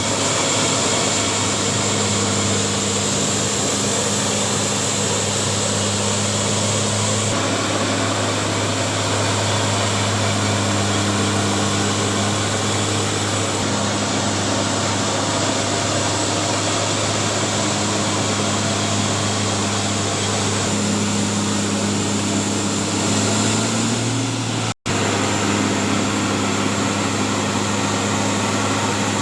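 Milling machinery running steadily with an even, unbroken hum. The sound drops out for an instant about 25 seconds in and resumes unchanged.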